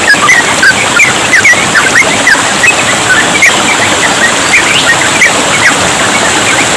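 Yellow-vented bulbuls (trucukan) singing nonstop, a dense run of short, quick chirps over the steady rush of trickling water.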